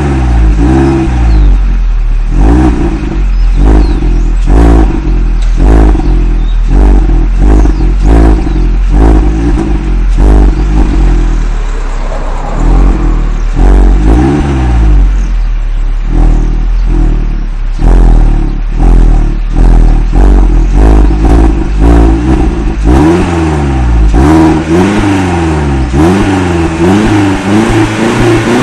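Peugeot 206 GTi's 2.0-litre four-cylinder engine being revved over and over, quick throttle blips for most of the time, then longer rises and falls near the end. It runs through the stock exhaust with a K&N replacement air filter in the original airbox, and the loud recording distorts a little.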